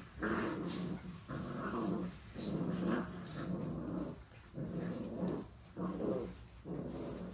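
American bully puppies growling while they play-fight, in repeated short bouts with brief pauses between.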